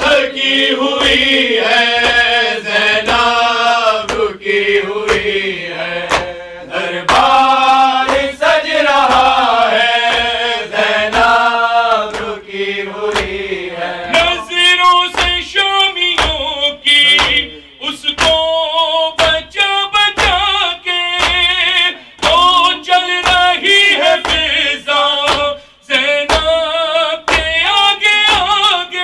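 A man singing a chant-like recitation into a handheld microphone, loud and at full voice, with long held and bending notes. Regular sharp slaps keep time under the voice.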